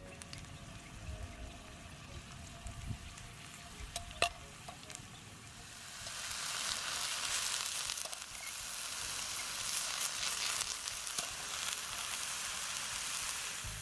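Garlic and king oyster mushrooms frying in olive oil in a camping frying pan. The sizzling is faint at first, with one sharp click about four seconds in. From about six seconds in, when the mushrooms are in the pan, it turns loud and steady.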